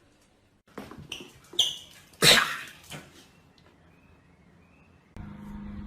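A dog making several short, sharp sounds over about two seconds, the loudest about two seconds in. Near the end a steady low hum starts.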